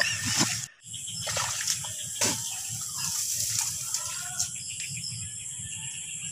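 Splashing and sloshing in the shallow water of a flooded rice paddy, with a few sudden splashes in the first two seconds or so, then a steady background hiss.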